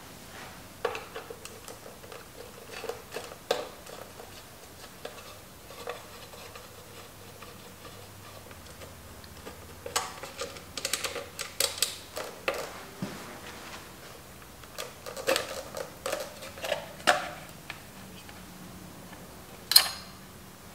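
Scattered small clicks and taps of a screwdriver working the headlight rim and screws of a Honda CB750 as the headlight is taken out. The clicks bunch up in two spells in the second half, with one sharper, louder click near the end.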